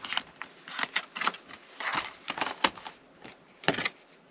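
Paper cards and cardboard packaging from a Blu-ray set being handled: a quick run of rustles and light clicks, then one more rustle near the end.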